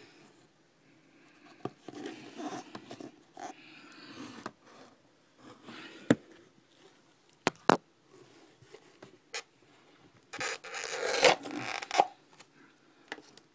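Handling noises: scattered rustling and scraping with several sharp clicks and knocks, and a longer, louder rustling scrape about ten seconds in.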